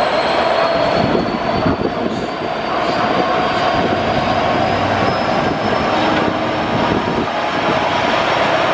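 A Class 66 diesel locomotive's two-stroke V12 engine runs loud and steady as the locomotive moves slowly past, with a thin high whine that climbs slowly in pitch.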